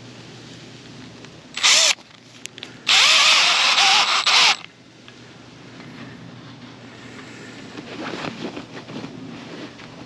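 Power drill driving a screw: a short burst, then a longer run of nearly two seconds with the motor's pitch wavering under load. Lighter knocks and handling noise follow.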